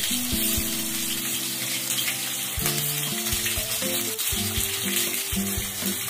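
Hot oil sizzling in a frying pan with chopped green chillies as mustard and cumin seeds go in, with scattered sharp clicks. Soft background music with changing notes plays under it.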